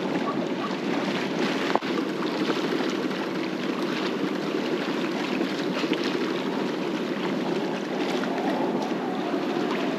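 A sailboat motoring under way: a steady rushing noise of engine, wind and water, with one sharp knock about two seconds in.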